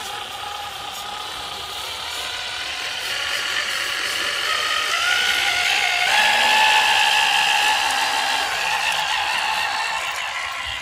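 Electric drive motor and gearbox of an RC Unimog scale truck whining as it climbs ramps under load. The pitch steps up about six seconds in and the whine is loudest just after.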